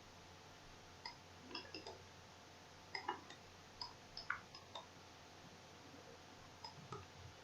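Faint, irregular computer mouse clicks, a dozen or so scattered short clicks over quiet room tone.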